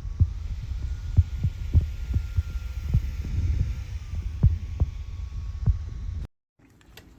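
Dyson V15 Detect cordless stick vacuum running with a steady low hum and irregular dull knocks, stopping abruptly about six seconds in.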